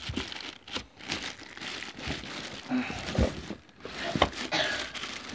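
Clear plastic wrapping crinkling and rustling as hands grip a bagged chainsaw in its cardboard box, with a few sharp knocks in between.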